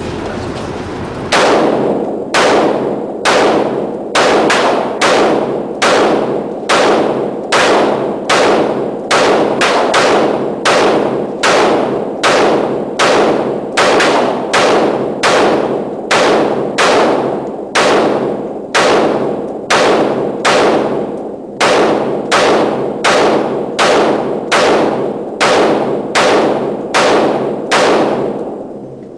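Gunshots at a shooting range, fired in a steady, even run of about three shots every two seconds, each shot ringing out briefly. The firing starts about a second in.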